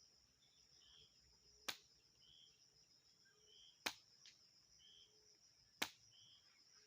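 A faint, steady high-pitched insect drone with short chirps repeating every second or so, broken by three sharp knocks about two seconds apart.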